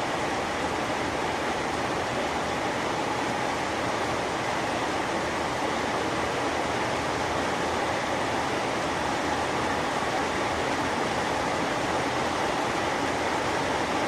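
Heavy rain falling steadily: a dense, even hiss of rain.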